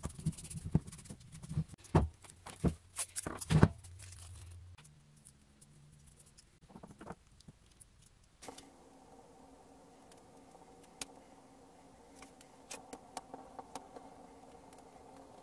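Clicks and knocks of a small rusty table vice being handled and wiped with a rag, loudest and busiest in the first four seconds. After that come quieter, scattered handling ticks over a faint steady hum.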